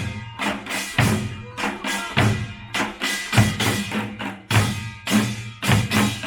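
Korean pungmul (nongak) percussion band playing. Heavy drum strokes land about once a second, with fast, lighter strikes between them.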